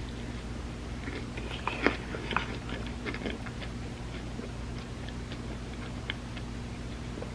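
Close-up eating sounds: a bite into a tortilla dessert lasagna layered with chocolate and peanut butter, followed by chewing with soft wet mouth clicks. The two loudest clicks come about two seconds in, over a steady low hum.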